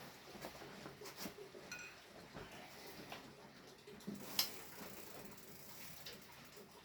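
Scattered light metallic clicks and clinks of a tool and parts being worked by hand on a bicycle's crank assembly, with one sharper click about four seconds in.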